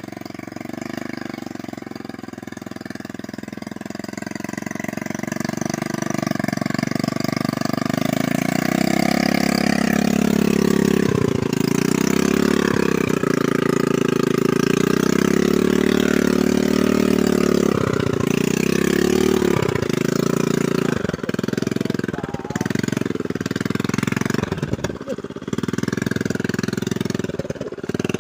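Small trail motorcycle ('motor Sukhoi') engine pulling in low gear up a steep dirt track. It grows louder about four seconds in and holds a loud, steady drone, then dips and surges repeatedly near the end.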